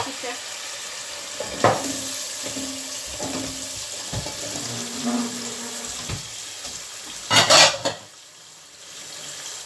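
Onion-garlic masala sizzling in a non-stick pot while peeled taro corms (kochu mukhi) are tipped in from a bowl, with a few light knocks of the pieces and a wooden spatula against the pot. A brief loud rush of noise comes about seven seconds in, and the sound is quieter after it.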